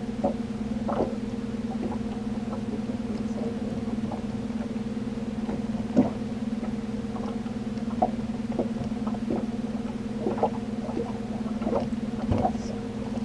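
Boat motor humming steadily at trolling speed, with scattered light clicks and knocks of fishing tackle being handled at the rod holders, the sharpest about six and eight seconds in.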